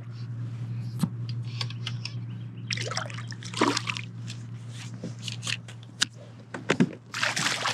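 Water splashing and trickling at the surface as a hooked bass is reeled in beside a kayak, in irregular bursts, with the biggest splashes about three seconds in and again near the end. A steady low hum runs underneath.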